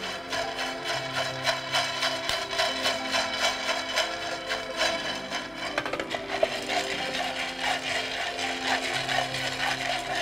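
Coffee beans scraped and rattled around a frying pan by a spatula under fast, steady stirring, while they roast through first crack. Background music plays underneath.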